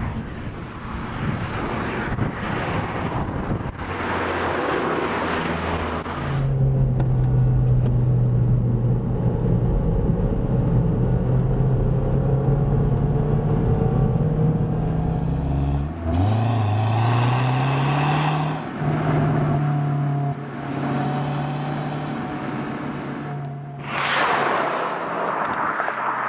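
MazdaSpeed3's turbocharged four-cylinder engine and exhaust driving on a road: first a noisy stretch of passing car and road noise, then a steady engine drone as from the cabin, which climbs in pitch about sixteen seconds in as the car accelerates, settles again with a few brief breaks, and gives way to another noisy surge near the end.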